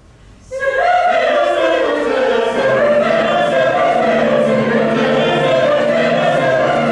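Mixed choir of women's and men's voices singing, entering together after a brief rest about half a second in and holding sustained chords.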